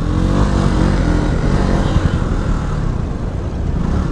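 Motorcycle engine idling steadily, with a low rumble under it.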